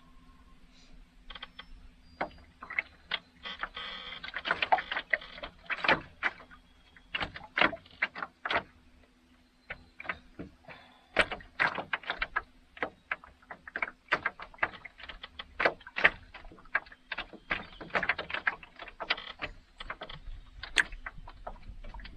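Irregular clicks and light knocks, sometimes several a second, over a faint steady hum, with a brief lull partway through.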